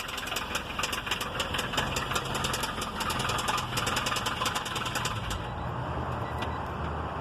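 1993 Honda Civic engine running with a rapid, regular knock, about six knocks a second: engine knocking, the sign of a badly worn engine. The knocking grows much fainter about five seconds in while the engine keeps running.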